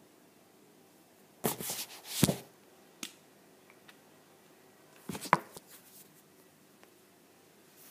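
Handling noise from a tablet being gripped and moved: two short bouts of rubbing and knocking, about a second and a half in and again near five seconds, with sharp clicks.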